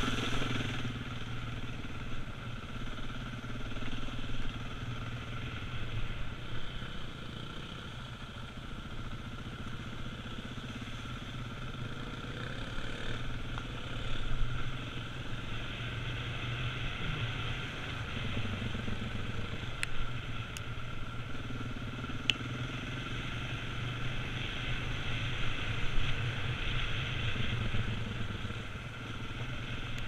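KTM 690 enduro motorcycle's single-cylinder engine running steadily while riding a dirt trail, rising and easing a little with the throttle, with two brief sharp clicks a little after twenty seconds.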